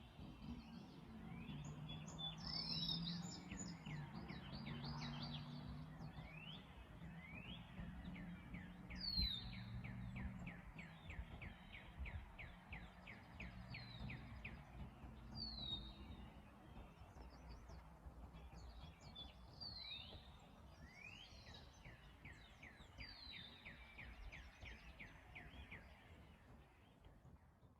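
Outdoor birdsong: birds chirping, with fast repeated trills and sharp hooked calls, over a low steady hum.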